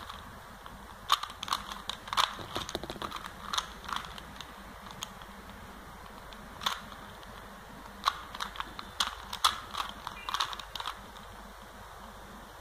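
A plastic Rubik's cube turned by hand: quick runs of sharp clicks as its layers are twisted, in irregular flurries with pauses of a second or more between them.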